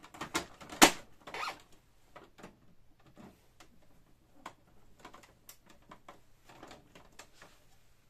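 Hard plastic clicks and knocks as a Canon MP-series inkjet printer's parts are handled with a screwdriver during disassembly: several sharp clicks in the first second and a half, then lighter scattered clicks and rustling.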